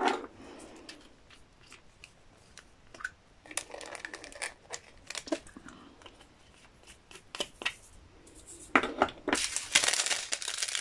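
Thin plastic bags of diamond-painting drills crinkling as they are handled, with scattered small clicks and taps of plastic pots. Near the end a drill bag is worked open in a longer, louder run of crinkling and tearing.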